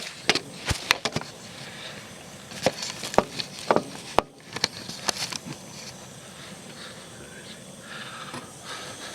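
Knocks, taps and rubbing from the camera being handled and repositioned, with a sharp click about four seconds in. After about five seconds only a faint steady hiss remains.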